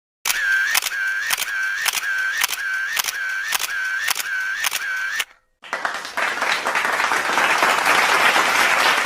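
A sound-effect clip: a run of about a dozen evenly spaced clicks, roughly three a second, each with a short dipping whine, in the manner of a camera shutter firing in burst mode. After a brief gap comes a dense noisy sound that swells like applause.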